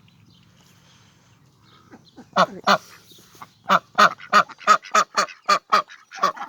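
Ducks quacking loudly, a rapid run of harsh calls at about three a second, starting about two seconds in.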